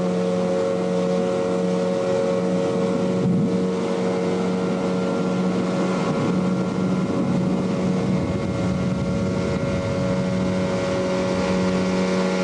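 Boat engine running at a steady speed, giving a constant droning hum.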